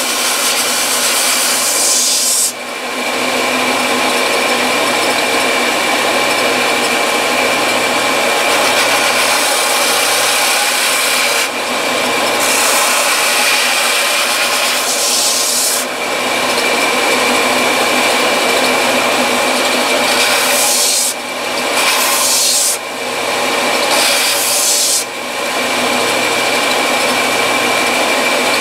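Belt sander running steadily with a motor hum while a recoil pad on a wooden rifle stock is pressed against the belt and ground to shape. The grinding hiss drops out briefly several times as the stock is lifted off the belt and repositioned.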